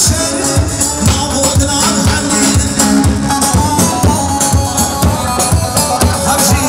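Kurdish wedding dance music from a live band: a keyboard-led melody over a steady, driving drum beat.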